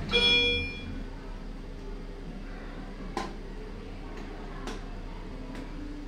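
Lift chime: a single bell-like ding that rings out for under a second. A low steady hum in the lift car follows, with a few faint clicks.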